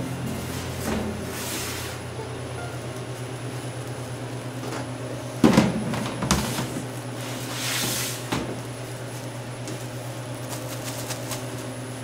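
Walk-in cooler's refrigeration unit humming steadily while bagged salad greens in plastic are handled: plastic bags rustle and a plastic tote knocks. The loudest sound is a thump about five and a half seconds in.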